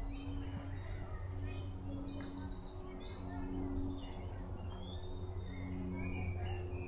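Several songbirds singing, with short chirps and fast trilled phrases all through. A low hum comes and goes underneath.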